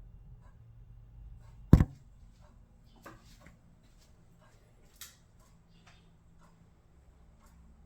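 A single sharp, loud bang from a Frigidaire Gallery refrigerator about two seconds in: the popping noise it makes every 3 or 4 hours. A low hum runs under it and drops after the bang, and faint ticks and clicks follow.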